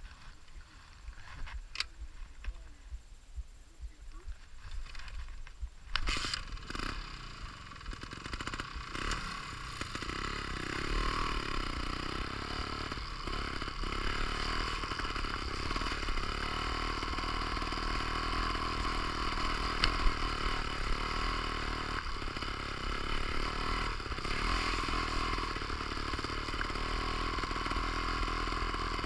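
Trials motorcycle: a few clicks and scrapes of handling, then the engine starts about six seconds in and runs steadily as the bike is ridden, growing louder from about ten seconds in.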